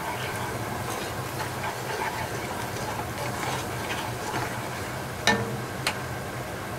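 Shallots, garlic and saté powder sizzling in oil in a pot, stirred with a wooden spatula, over a steady low hum. Two sharp knocks about five seconds in.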